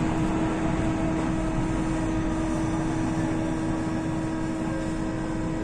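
JR West 207 series electric train running, heard from inside the passenger car: a steady hum with one constant mid-low tone over wheel and track noise, getting slightly quieter near the end.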